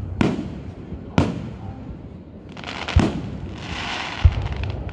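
Aerial fireworks shells bursting overhead: four sharp bangs, irregularly spaced a second or so apart, with a crackling hiss in the second half.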